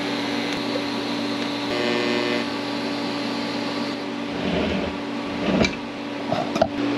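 TIG welding arc running steadily with a hiss over a low hum as a bead is laid around a fitting to seal it; the arc stops about four seconds in. A knock and a few clicks follow near the end as the part is handled in the vise.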